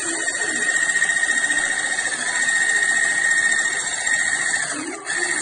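Electric immersion hand blender with a 500-watt motor running steadily, its stainless steel blade spinning in a liquid mixture in a stainless steel bowl, with a steady high whine. The sound dips briefly near the end, then carries on.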